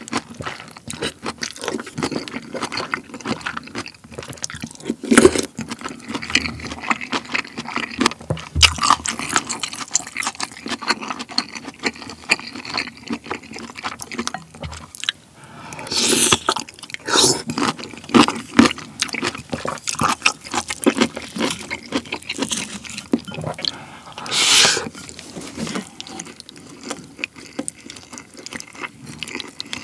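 Close-miked eating of pork-belly kimchi stew: a spoon clinking and scraping in the bowl, wet slurps of broth and chewing. A few louder, longer slurps come past the halfway mark.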